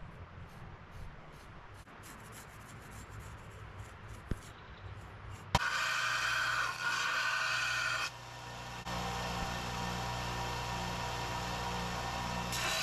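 Belt grinder profiling Damascus steel knife blanks on a worn 40 or 60 grit belt. A quieter stretch of light scraping and handling noise gives way about halfway in to a sudden, loud, steady grinding with a whine, which dips briefly and comes back.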